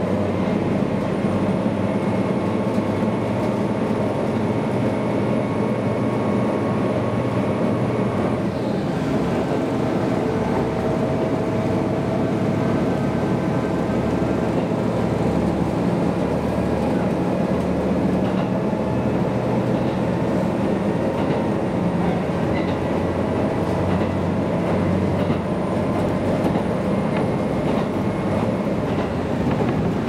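Inside a KiHa 200 diesel railcar under way: the diesel engine runs steadily under the rumble of the wheels on the rails. The engine's tones change about eight seconds in.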